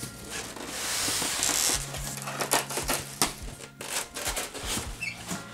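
Packaging being handled and unpacked: a rustling hiss in the first couple of seconds, then a run of small clicks and knocks, over faint background music.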